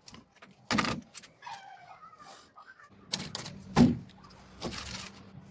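Hard objects knocking together: a sharp knock, a brief wavering squeak, then two more knocks, the last the loudest, with a low steady hum coming in about halfway through.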